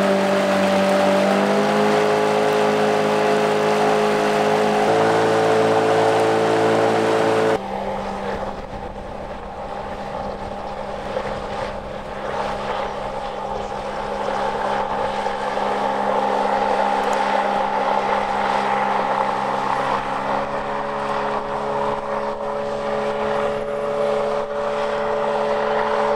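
Sustained music chords that cut off abruptly about eight seconds in, then a car driving along with steady engine and road noise.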